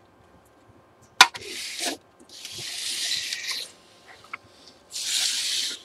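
A sharp click, then three rubbing, scraping slides, each about a second long, as the opened Samsung SyncMaster 226BW monitor's sheet-metal chassis is slid and turned on the workbench.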